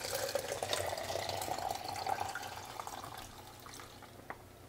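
Used C-41 stabilizer poured out of a film-developing tank into a plastic measuring jug. The stream splashes and gurgles into the jug, then thins to a trickle and dies away over about three seconds, with a drip or two near the end.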